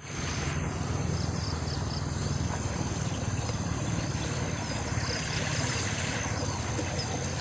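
Steady high-pitched trilling of insects, unbroken throughout, with a few faint chirps and a low rumble underneath.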